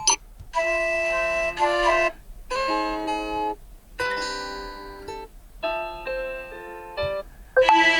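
Nubia Red Magic 5S default alarm tones previewed one after another: about five short melodic clips, each cut off after one to two seconds before the next starts.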